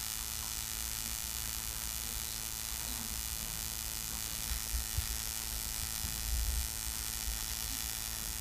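Steady electrical mains hum with a hiss of background noise from the recording chain, with a couple of faint low bumps around the middle.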